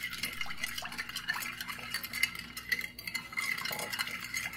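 Metal spoon stirring sugar and salt into water in a ceramic baking dish: water swishing, with many small scrapes and clinks of the spoon against the dish.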